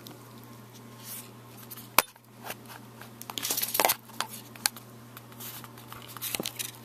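Plastic wrap being taken off a small fisheye lens: short crinkling rustles mixed with sharp clicks and taps of the lens and packaging being handled, the loudest click about two seconds in.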